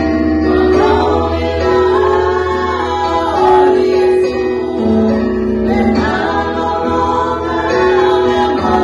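Four women singing a Samoan gospel song together in harmony, with long held notes over a guitar accompaniment.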